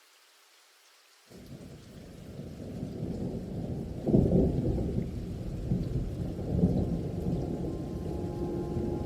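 Rolling thunder with rain, a low rumble that fades in about a second in and swells sharply about four seconds in, as a thunderstorm soundtrack opening.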